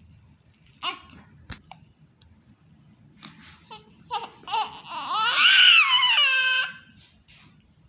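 Newborn baby crying: a few short cries, then one long loud wail about five seconds in that rises and falls in pitch.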